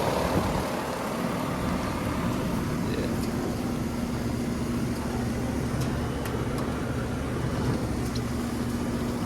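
Residential heat pump outdoor units running: a steady fan whoosh with a low compressor hum, and a steady low hum tone coming in about two and a half seconds in.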